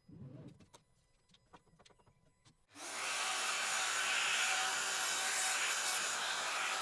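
A plunge router with a dust-extractor hose attached starts up about three seconds in and runs steadily, cutting through plywood along a template. Before it, only a brief soft handling sound and a few faint clicks.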